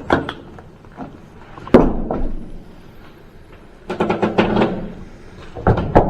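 Knocks and thuds of a loose wooden board being handled: a sharp bang just under two seconds in, then bursts of knocking and scraping about four seconds in and again near the end.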